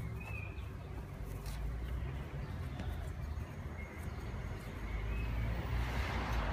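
Outdoor garden ambience: a steady low background rumble with a few faint, short bird chirps, and a hiss swelling near the end.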